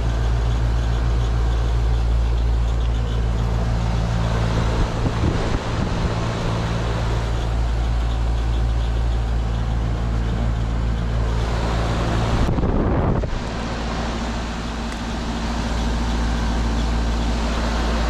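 Payne central air conditioner condensing unit running: a steady low compressor hum under the even rush of the condenser fan.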